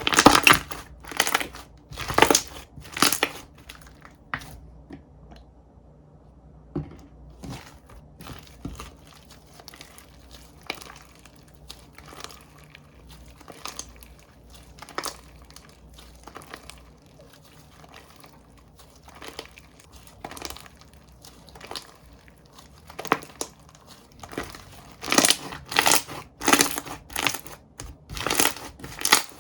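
Hands squishing, pressing and poking slime, giving short sharp pops and crackles. They come in quick runs at the start and again near the end, sparser in between.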